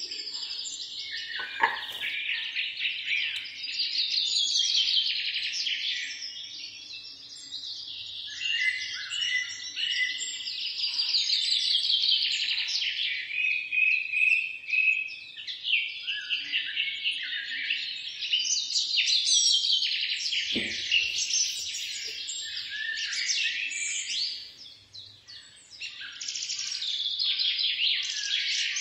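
Many small birds chirping and twittering at once, a dense, unbroken chorus of overlapping high calls and trills. A soft knock comes about twenty seconds in.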